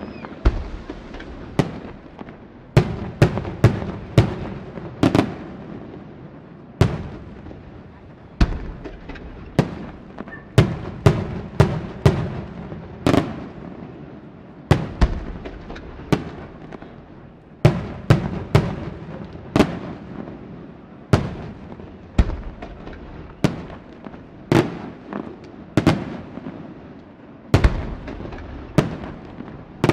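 Aerial fireworks shells bursting in quick succession: dozens of sharp bangs at irregular intervals, often one or two a second, each trailing into a rumbling echo.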